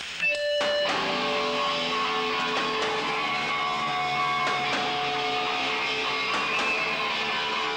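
Distorted electric guitar through an amp playing alone, a few short ringing notes and then steady held chords, with no drums yet.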